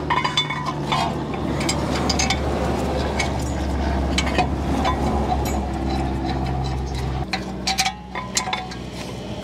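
Cordless ratchet running a thread-locked caliper bracket bolt into the steering knuckle, with a steady motor hum and ratcheting clicks. It stops abruptly about seven seconds in, followed by a few metal clinks of tool and bolt.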